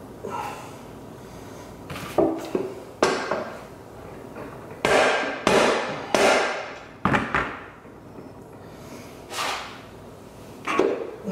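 Metal transfer-case parts, the input shaft and planetary gear set, knocking and clinking as they are handled and fitted together. It is a series of separate knocks, some with a short ring, the busiest and loudest around the middle.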